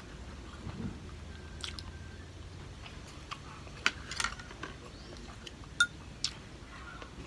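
Close-miked mukbang eating: a person chewing food, with scattered sharp clicks, the loudest about four seconds in and again near six seconds.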